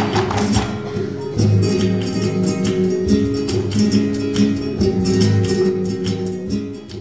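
Flamenco-style music with plucked guitar and many quick, sharp percussive strikes over it, fading down near the end.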